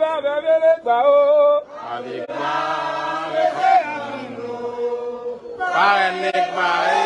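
Vodou ceremonial chant in call and response: a lone voice sings a line, then a crowd of voices answers together about two seconds in, swelling again near the end.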